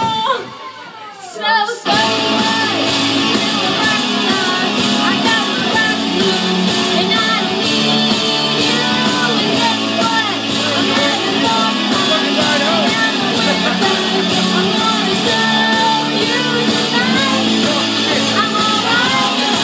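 Woman singing karaoke into a microphone over a backing track with a steady beat. A held note at the start breaks off and the sound drops for about a second and a half, then the full backing track comes back in about two seconds in and she sings on.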